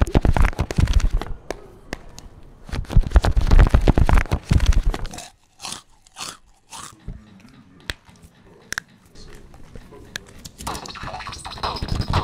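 Footsteps of sneakers climbing tiled stairs, mixed with scuffing and rubbing on the handheld phone's microphone, loudest in two stretches near the start and around the middle.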